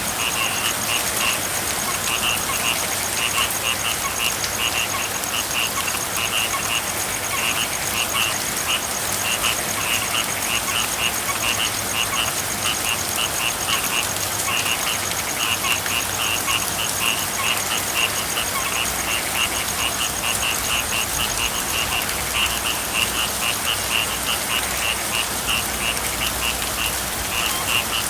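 Frogs calling in runs of quick, high, repeated notes with brief pauses between runs, over a steady hiss of falling rain.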